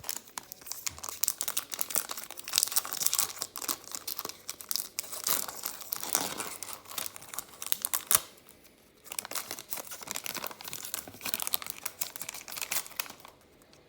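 Trading card pack wrapper being torn open and crumpled: a dense crinkling and crackling of the wrapper with tearing, easing off briefly about nine seconds in before the crinkling resumes.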